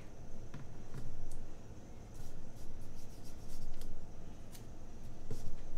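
Paper rustling and rubbing as fingers position and smooth a die-cut paper sticker onto a planner page, with scattered light clicks and taps.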